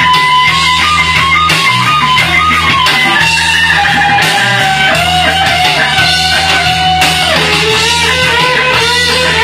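Electric guitar solo of long held, bending notes whose melody gradually sinks in pitch, played over a backing track with a repeating bass line.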